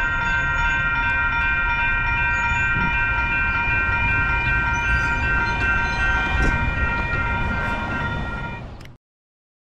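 Grade-crossing warning bells ringing steadily, with wind rumble on the microphone; the sound fades out and stops about nine seconds in.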